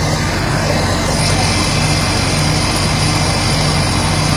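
Fire truck's diesel engine running steadily, a constant low drone with an even hiss over it.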